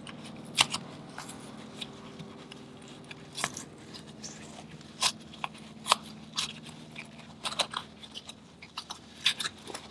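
Oily pleated paper element of an aircraft oil filter crackling and crunching as it is worked out of its cut-open metal canister, in irregular sharp clicks and scrapes over a faint steady hum.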